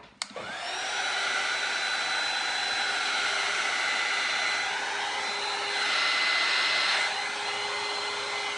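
Handheld corded heat gun switched on with a click, its fan spinning up and then running with a steady blowing rush and a steady whine.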